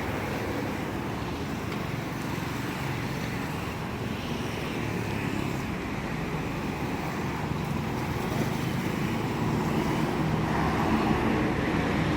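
Steady urban street noise with passing traffic, growing slightly louder near the end.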